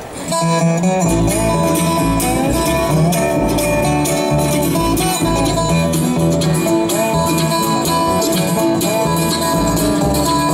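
A bluegrass band kicks into an instrumental intro at a brisk tempo. A harmonica plays long, sliding notes over acoustic guitar, five-string banjo, mandolin and a pulsing upright bass.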